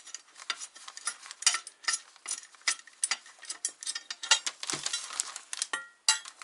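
Irregular metallic clicks, clinks and rattles of metal motor-mount parts and hand tools being handled while a mounting bracket is fitted to an electric motor.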